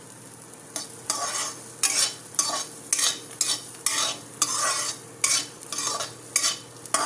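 Steel spatula stirring and scraping cashews, garlic and dried red chillies across a steel kadhai in a little hot mustard oil, in quick repeated strokes about twice a second, with the frying sizzle under them. The nuts are being sautéed lightly, not browned.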